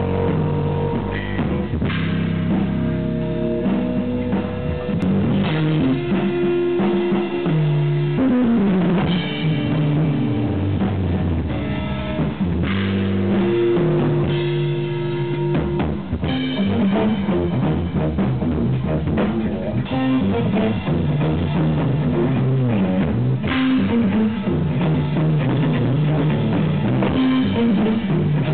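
Instrumental jazz-rock fusion played live by an electric guitar, electric bass and drum kit trio. The recording is overdriven and muffled, with the top end cut off.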